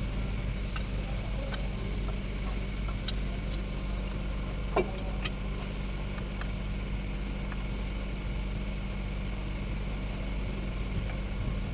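An engine idling steadily with a low, even hum, overlaid with scattered light metallic clicks of tools and one sharper short sound about five seconds in.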